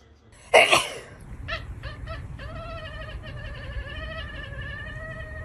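A loud short yelp about half a second in, then a cat gives a few short meows and one long, steady, slightly wavering meow lasting about three seconds.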